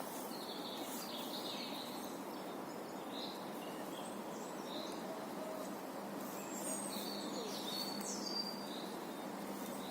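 Outdoor ambience: a steady background hiss with small birds chirping now and then, short high calls scattered through it.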